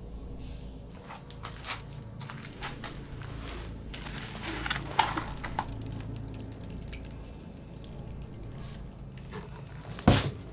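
Small objects rustling, clicking and clattering as a cluttered cabinet and its drawers are rummaged through, with a knock about halfway and a sharp, louder knock near the end.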